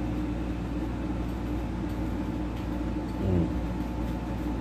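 Steady low droning hum that holds even throughout, with a faint brief murmur about three seconds in.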